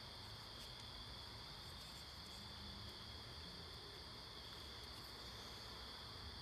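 Faint, steady, high-pitched insect trilling over a low hiss.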